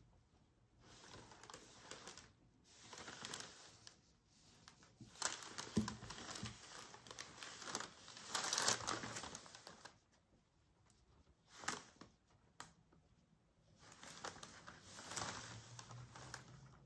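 Acrylic paintbrush bristles stroking and dabbing paint on a stretched canvas and palette: a series of short, soft scratchy swishes with quiet gaps between them and a few light clicks.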